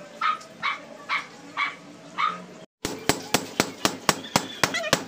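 A dog barks five times, about half a second apart. After a sudden break, a hammer strikes a chisel against decorative concrete ventilation blocks in a fast run of sharp knocks, about four or five a second, chipping a block out of the wall.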